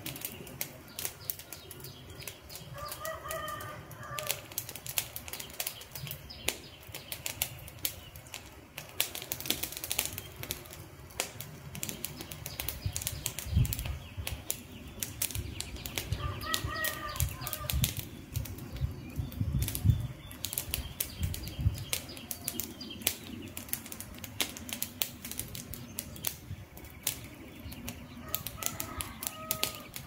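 Wood campfire burning, with dense, irregular crackles and sharp pops throughout. A bird calls briefly three times: about three seconds in, around the middle, and near the end. A low rumble runs through the middle stretch.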